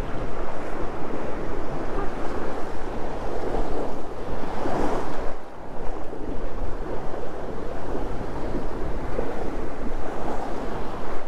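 Water rushing and foaming along the hull of a Linjett 39 sailing yacht making about 8 knots under gennaker, with wind buffeting the microphone. The rush swells louder about halfway through, then briefly drops.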